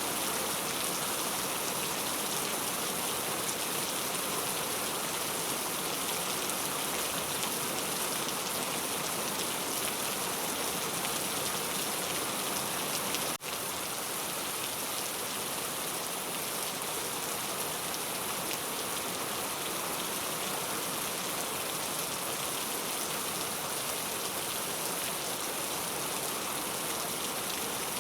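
Heavy rain falling steadily: a dense, even hiss, strongest in the high end, with a momentary dropout about halfway through.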